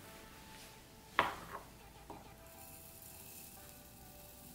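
A metal measuring cup scooping dry rolled oats from a glass bowl, with a sharp clink about a second in and two lighter knocks after it, then a soft hiss of oats being poured into a glass jar.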